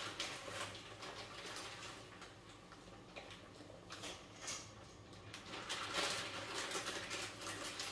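Faint scattered clicks and light taps of cookware being handled at the hob, over a low steady hum.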